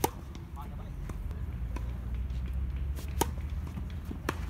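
Tennis ball struck by rackets in a doubles rally: a sharp crack of the serve at the very start, then a few more pops of racket hits and bounces, the loudest about three and four seconds in, over a steady low rumble.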